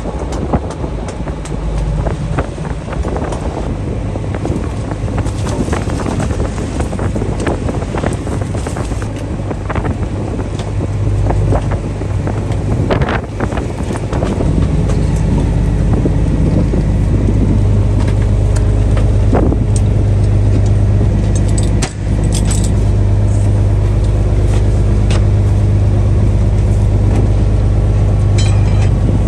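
A fishing boat's engine runs with a steady low hum, and sharp knocks and metallic clinks sound on deck. About halfway through, the engine grows louder and steadier.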